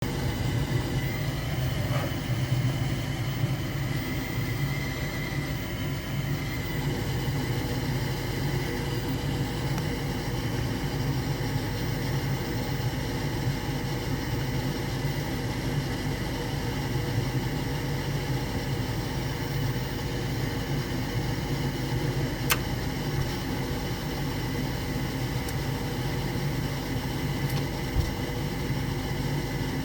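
Gas furnace running with a steady low motor hum and a few sharp clicks, on a furnace whose burners fail to light.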